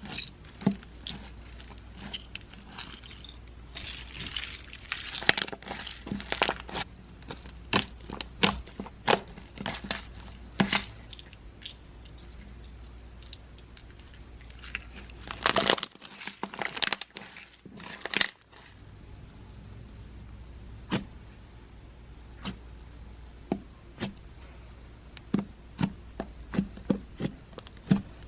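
Homemade slime squished, stretched and poked by hand, giving an irregular run of sharp pops, clicks and crackles from air trapped in the slime.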